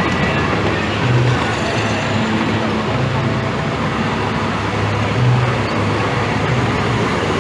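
A 7¼-inch gauge miniature railway train running, heard from a carriage it is hauling. There is a steady rumble of wheels on rail, with a low engine hum from the diesel-outline locomotive that swells and fades every second or so.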